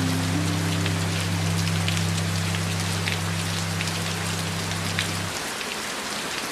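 Steady rain with scattered sharper drop hits, under a low held music drone that stops about five seconds in.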